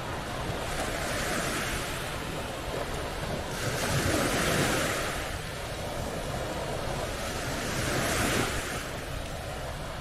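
Small waves breaking and washing up a sandy shore, swelling in three surges, the strongest about four seconds in, with wind rumbling on the microphone underneath.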